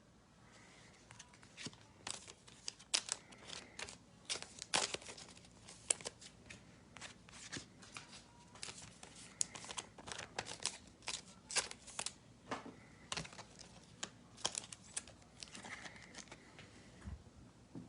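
Trading cards being handled and sorted, a string of light flicks and clicks as the cards are slid and tapped against one another.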